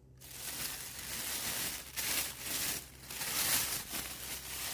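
Plastic oven bag crinkling and rustling as it is handled around a turkey, with several louder crinkles along the way.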